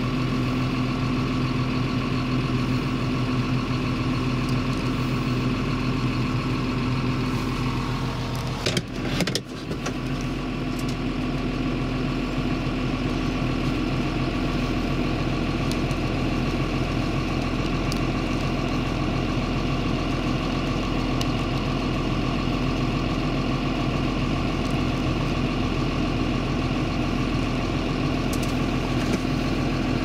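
Steady drone of a Claas Jaguar forage harvester chopping maize, with the engine of the tractor running alongside, a constant machine hum with a low steady tone. It breaks off briefly about nine seconds in, then carries on unchanged.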